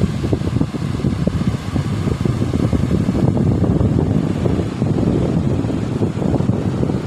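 Strong wind buffeting the microphone: a loud, fluttering low rumble.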